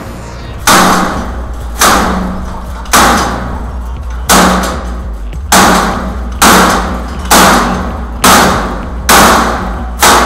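Hammer blows on a chain-link gate's metal frame, about ten strikes roughly a second apart, each ringing briefly before the next.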